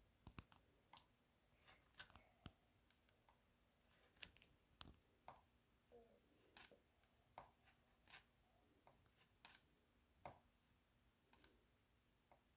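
Faint, irregular ticks and scratches of a pencil writing on a glossy workbook page, a child drawing a big letter C.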